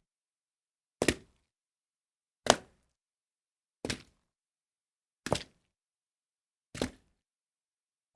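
A series of short, separate water splashes, five in a row about one and a half seconds apart, each a quick sharp splash that dies away fast, with silence between them.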